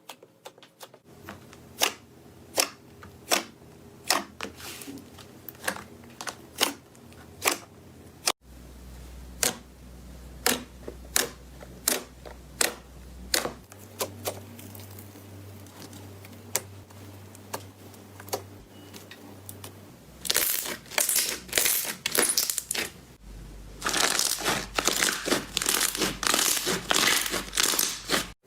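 Slime being pressed and stretched by hand, giving sharp pops about once every second. Near the end it turns into dense crackling.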